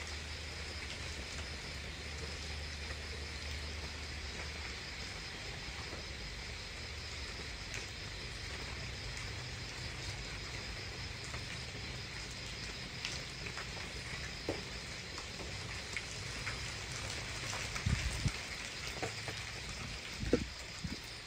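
Steady night-time insect chorus, a continuous high chirring, over a low hum, with a few faint knocks near the end.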